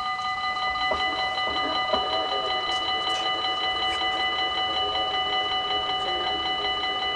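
Dutch level-crossing warning bell ringing continuously, a rapid pulsing electronic ring, signalling that the crossing has closed for an approaching train. From about a second in, a lower wavering hum runs beneath it while the half-barrier arms lower.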